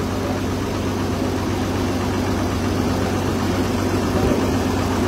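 A river ferry boat's engine running at a steady pace: a continuous low drone with a steady hum.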